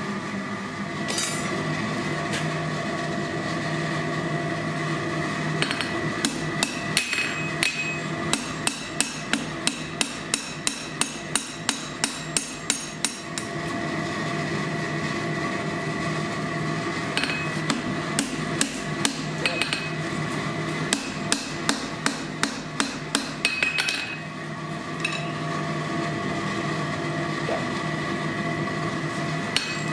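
Hand-hammer blows on hot steel over an anvil while forging tong jaws, in two long runs of about two to three blows a second, some strokes ringing. A steady mechanical hum runs underneath.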